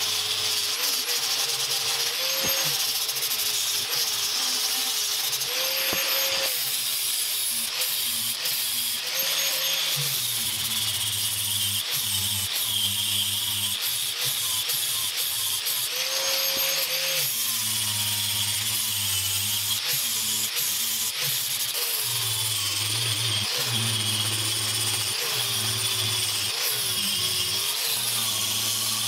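Handheld angle grinder grinding the steel of an old axe head, running continuously with its whine dipping in pitch again and again as the disc is pressed into the metal.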